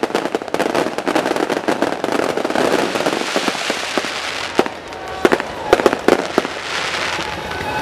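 Fireworks display: a dense, continuous crackling of many small reports, with a few louder single bangs standing out between about four and a half and six and a half seconds in.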